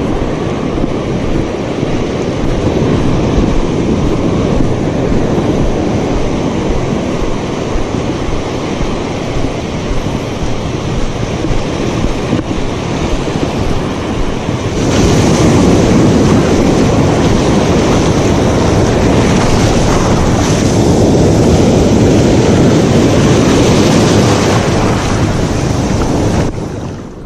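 Sea surf washing in over the sand, with wind buffeting the microphone; it grows louder about halfway through and stays so until near the end.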